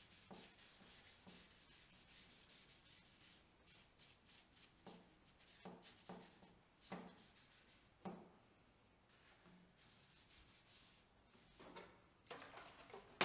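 Faint rubbing of a paper-towel rag in repeated short strokes over a plywood hatchet handle, wiping on polyurethane finish, with a few soft knocks midway.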